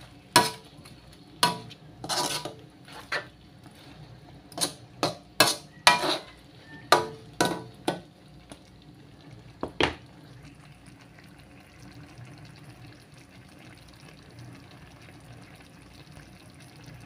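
Metal spoon scraping and knocking against an aluminium wok while stirring chicken adobo in its sauce. There are about a dozen sharp strokes over the first ten seconds, then only a faint steady hiss from the pan.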